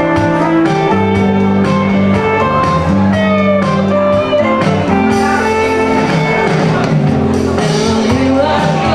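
Live music from a small duo: an electric guitar playing with a woman singing.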